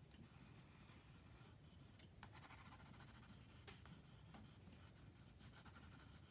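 Faint scratching of a water-soluble graphite pencil drawn dry across sketchbook paper in loose strokes, with a few small ticks.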